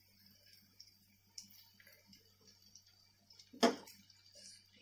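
Wooden spatula working in a kadhai, moving stuffed eggplants: faint scattered taps, with one sharp, louder knock about three and a half seconds in.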